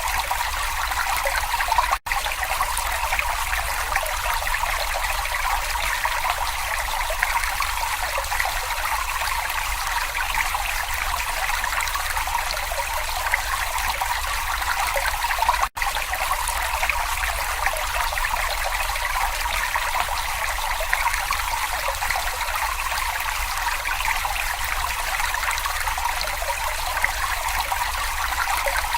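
Babbling brook: a steady rush of trickling, flowing water, with two momentary dropouts, one about two seconds in and one about midway.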